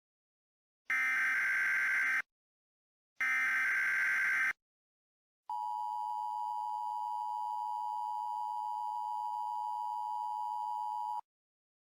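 Emergency Alert System SAME header: two bursts of screeching digital data tones about a second apart, followed by the single steady attention tone of about 1 kHz held for nearly six seconds before it cuts off. This sequence signals the start of a new emergency alert.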